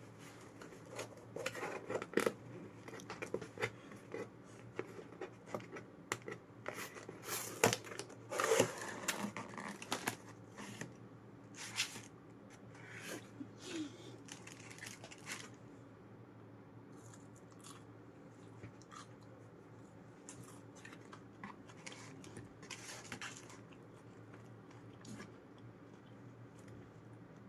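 Close-up crinkling and tearing of food packaging with crunchy bites and chewing, in irregular crackles that are busiest in the first half and thin out after about sixteen seconds.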